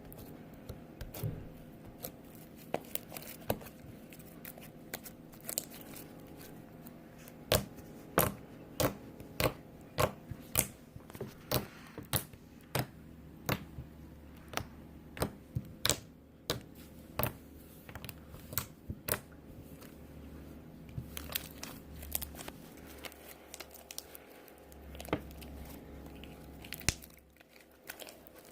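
Slime being squeezed and pressed by hand, giving a string of sharp pops and clicks at an irregular pace, thickest in the middle of the stretch and sparser toward the end.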